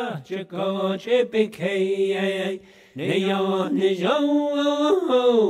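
Background music: a chanted song, voices holding long sung notes on syllables like "hey" and "oh", with a brief pause about halfway through.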